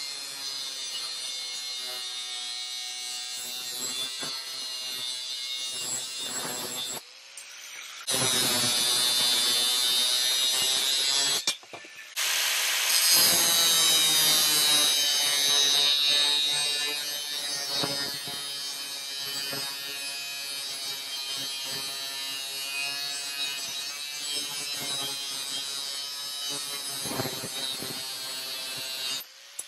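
Angle grinder with a 4.5-inch thin cutoff wheel cutting through steel angle iron: a steady high motor whine over a gritty hiss of the wheel biting the metal. It breaks off briefly twice, near seven and twelve seconds in, and is loudest between about eight and seventeen seconds.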